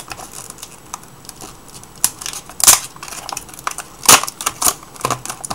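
Clear plastic blister pack being pulled and cracked open by hand: crinkling rustle with several sharp plastic snaps, the loudest about two and a half and four seconds in.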